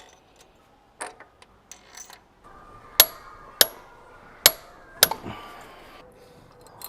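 Metal tools and timing parts knocking and clinking as camshaft sprockets and a timing chain are fitted to an engine. There are four loud sharp strikes between about three and five seconds in, with lighter clicks before and after.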